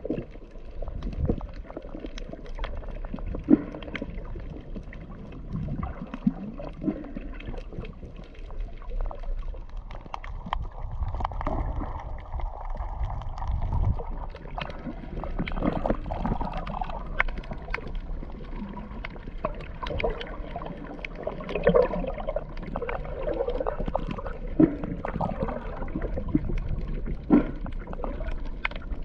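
Water sloshing and gurgling against a camera held just under the surface, heard muffled through the water, with scattered sharp clicks and knocks.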